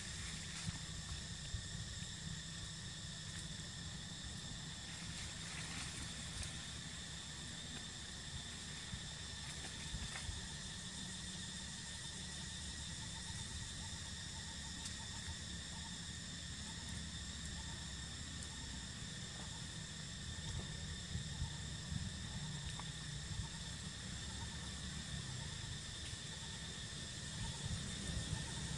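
Outdoor ambience: a steady, high-pitched insect drone over a low rumble, with a few faint clicks.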